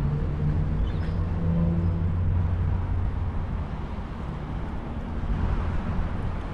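Low hum of a motor vehicle's engine over a steady low rumble, the hum fading away about halfway through.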